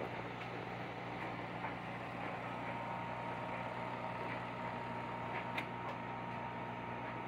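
S gauge model diesel locomotive with an American Models drive running along the track: a steady motor hum, with a few faint clicks.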